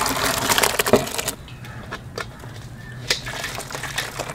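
Boiling water pouring off half-cooked basmati rice through a perforated steel colander, with a couple of sharp knocks in the first second. The rushing water stops about a second and a half in, leaving faint scattered clicks.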